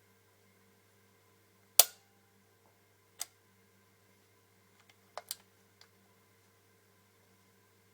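Mechanical clicks from handling a Walther CP88 CO2 pellet pistol: one sharp click about two seconds in, the loudest, then a fainter click a second later, a quick double click about five seconds in and a last faint one. A faint steady hum sits underneath.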